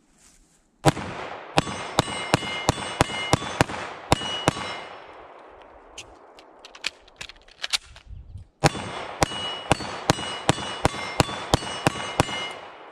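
Two rapid strings of 9mm pistol shots from a Canik SFx Rival, each roughly a dozen shots, separated by a pause of about four seconds. Steel targets ring with a steady metallic tone as the hits land.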